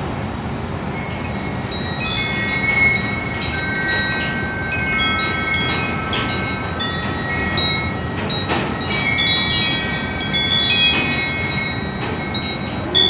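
Wind chimes ringing irregularly, many metal tones at different pitches struck and left to ring, over a steady background hiss. In the last half second an outdoor civil defense warning siren starts to wind up, rising in pitch.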